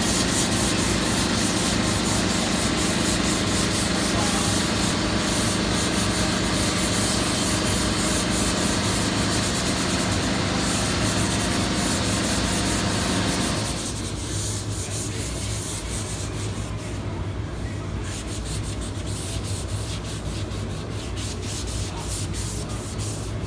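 Hand sanding of a painted cabinet door with a sanding pad: repeated rubbing strokes of abrasive over the painted wood. A steady hum underneath drops away a little past halfway, leaving the sound quieter.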